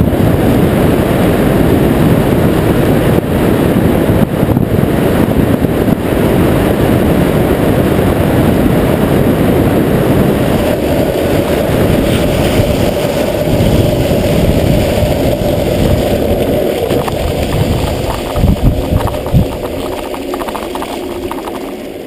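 Street luge rolling downhill at speed: wind on the microphone and urethane wheels on asphalt make a loud, steady rumble. About halfway a steady hum joins in, then the sound eases as the luge slows, with a few thumps near the end as it comes to a stop.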